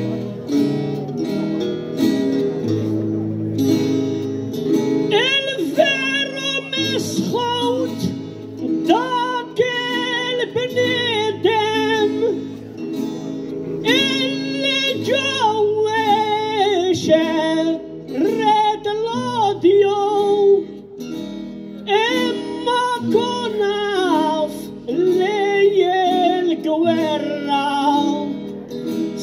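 Maltese għana: acoustic guitars playing, joined about five seconds in by a man singing high, ornamented lines into a microphone in phrases separated by short guitar passages.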